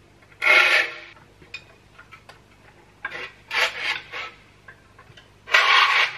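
Saw file rasping across the teeth of a crosscut handsaw clamped in a vise, sharpening them in separate push strokes: one about half a second in, a quick run of three at about three to four seconds, and a last one near the end. The steel saw blade rings faintly after the first stroke, with light clicks of the file between strokes.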